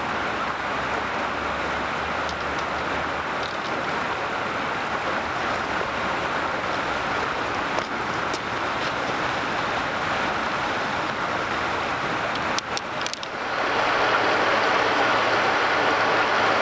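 Steady rush of river water flowing below a dam. The sound breaks briefly about three-quarters of the way through, then the same rushing water carries on a little louder.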